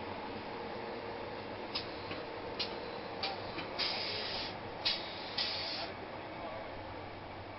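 Steady equipment hum under a few sharp metallic clicks and several short bursts of hiss, as valves and fittings on a gasifier test unit are worked by hand.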